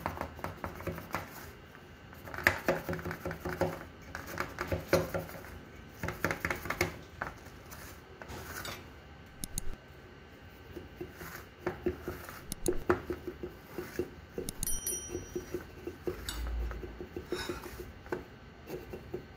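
A knife blade scraping and tapping against the inside of an aluminium ring cake pan in a run of short strokes, metal on metal, loosening the baked cake from the pan's sides and centre tube before it is turned out.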